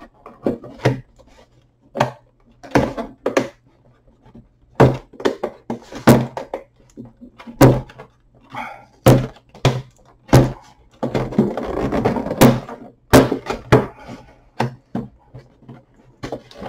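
Fingers picking, tapping and scratching at a clear plastic figure box and its taped lid, giving a string of sharp clicks and knocks, with a stretch of rubbing and scraping on the plastic about eleven seconds in.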